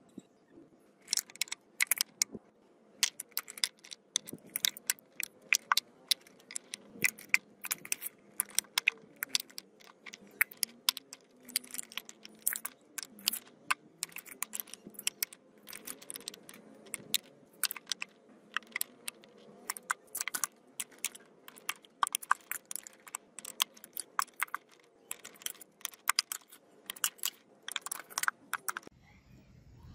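Cast aluminium ingots clinking and knocking against one another as they are stacked by hand into a wooden crate: many sharp, irregular clinks, several a second, stopping just before the end.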